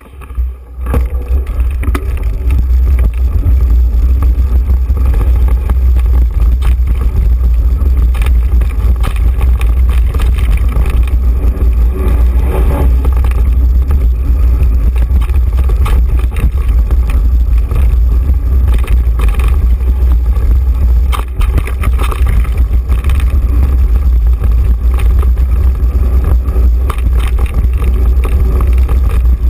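Wind buffeting a mountain biker's action-camera microphone while riding a dirt single track, a loud, steady deep rumble with rattles and knocks from the rough trail mixed in. It cuts in suddenly at the start as the ride gets going.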